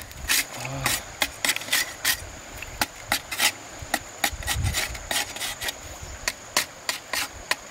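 Knife chopping and shaving the end of a green bamboo pole, an uneven run of sharp cuts about three a second.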